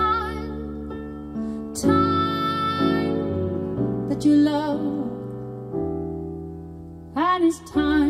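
Slow ballad played back over hi-fi speakers and picked up in the room. This is a passage without lyrics: held piano chords under a melody line with vibrato that comes in three short phrases.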